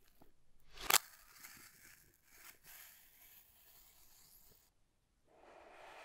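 Clear plastic seal being torn off the edge of a cardboard box: a sharp snap about a second in, then plastic crinkling and rustling. There is a short gap just before five seconds, then more rustling.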